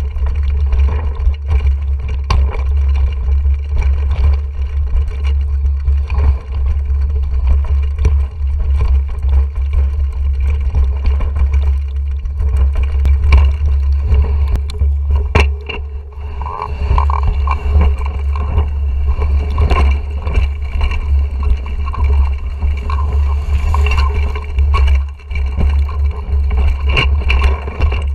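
Mountain bike riding down a rocky, leaf-covered trail, heard from a handlebar-mounted GoPro Hero 4: a steady low rumble of vibration through the bars and mount, with constant rattling and clicking as the tyres run over stones. In the second half a high tone comes and goes.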